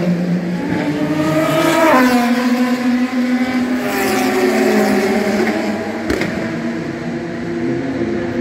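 Race car engines running on the circuit, several engine notes overlapping and shifting in pitch, with one note changing sharply about two seconds in.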